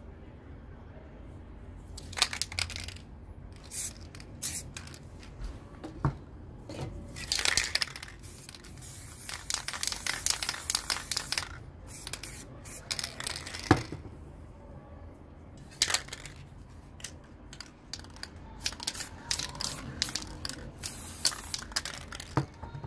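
Aerosol spray paint can hissing in many short bursts, with one longer spray of two to three seconds near the middle, as paint is sprayed along a hand-held masking strip. A few short knocks come in between the bursts.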